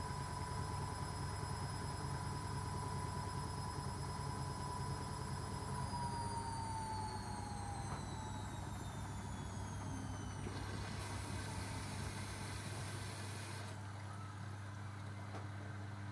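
Arçelik washing machine running with its drum motor whining at a steady pitch over a low hum, then the whine falls in pitch from about six seconds in as the drum slows down.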